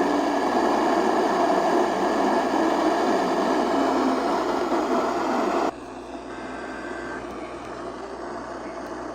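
Dense static hiss from a radio receiver. It cuts off abruptly about six seconds in to a quieter hiss, and a faint brief steady tone follows.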